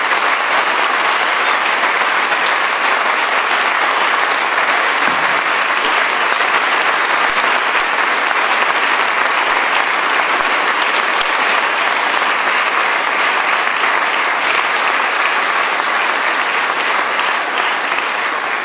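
A large audience clapping, steady and even throughout.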